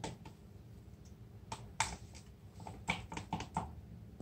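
A scatter of light, irregular clicks and taps, most of them bunched together in the middle of the stretch.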